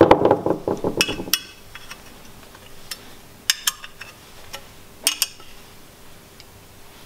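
Metal clinking as a motor mounted in a steel bracket is handled: a quick rattling run of clinks at the start, then a few sharp single clicks of metal on metal.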